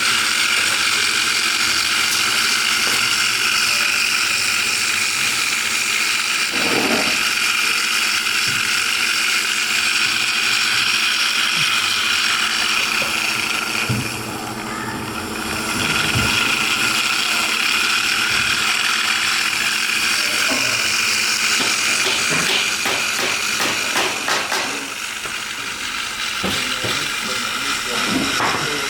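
Small electric motor running at speed with a steady high whine, easing off briefly about halfway through and again near the end.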